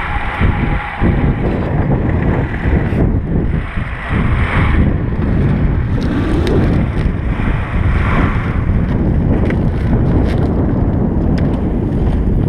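VAZ 2106 driving slowly over rough field ground, its engine running unevenly under light load, with knocks and rattles from the body over the bumps and wind buffeting the microphone. The engine barely holds its idle.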